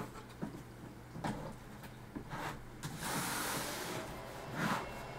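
Alta Labs S24-PoE network switch being plugged in and starting up: a few clicks and knocks from handling the cables and unit, then its cooling fans spin up at boot with a loud rushing whir about three seconds in, over a steady hum.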